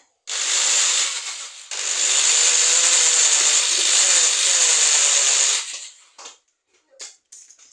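Power drill running in two bursts, a short one of about a second and a half and then a longer one of about four seconds, followed by a few brief blips near the end.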